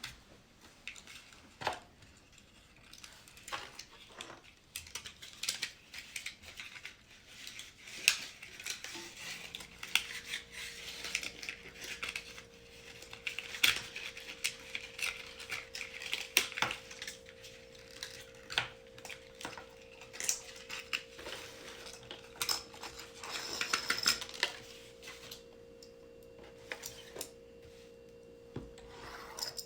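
Small plastic toy cars and packaging being handled and worked free: a long run of irregular clicks, taps and scratchy rustles. A steady hum sets in about nine seconds in and continues under the clicking.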